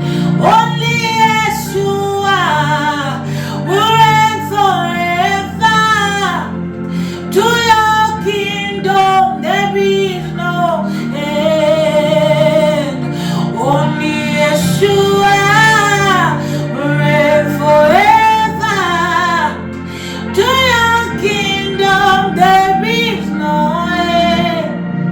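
Worship music: a woman singing a melody with vibrato and sliding notes over steady sustained backing chords.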